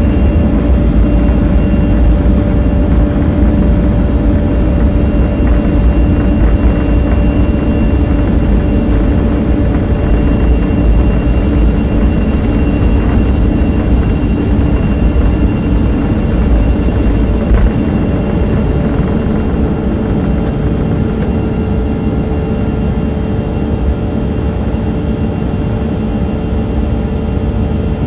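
Jet airliner's engines at takeoff thrust heard from inside the passenger cabin, a steady loud hum with a high whine. Under it a heavy rumble from the wheels rolling down the runway stops abruptly about 17 seconds in as the plane lifts off, leaving the engine sound alone through the climb.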